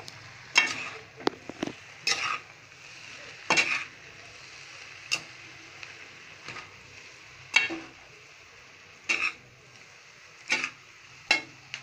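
Metal spoon scraping and knocking against a kadai while stirring and tossing fried rice: irregular clanks with a short metallic ring, about one a second, over a faint steady sizzle from the pan.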